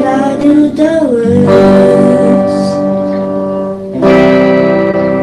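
Music with guitar and a singing voice, holding sustained notes; the melody slides about a second in and a new chord begins about four seconds in.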